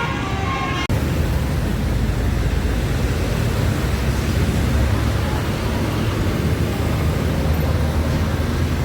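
A bus's multi-tone telolet horn sounds briefly, then cuts off abruptly about a second in. After that comes a steady, loud low rumble and rush of heavy road traffic.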